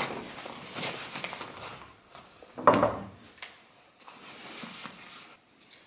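Handling noise of a Vanguard camera backpack and a folded travel tripod being fitted into it: fabric rustling and small plastic clicks, with one solid knock about two and a half seconds in.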